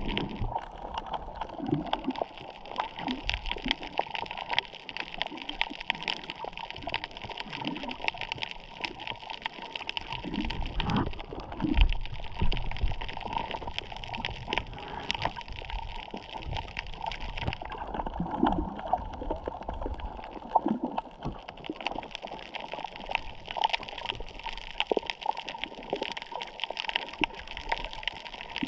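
Underwater sound picked up by a camera held just below the surface over a coral reef. A steady hiss carries dense fine crackling, with gurgling and sloshing of water around the camera and a few dull thumps, the loudest about twelve seconds in.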